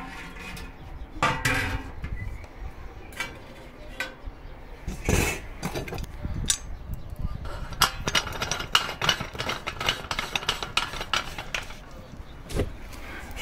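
Copper still parts clinking and knocking as they are handled: a string of short metallic taps and clicks, some ringing briefly, coming thickest in the second half.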